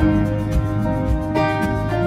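Instrumental background music, with held notes that change every second or so.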